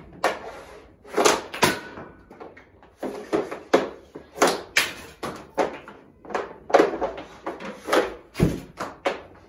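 Hockey stick blade clacking against pucks on a plastic shooting tile in quick repeated snap and wrist shots. About a dozen sharp knocks ring in a small room, often two close together as the blade slaps the tile and the puck strikes its target.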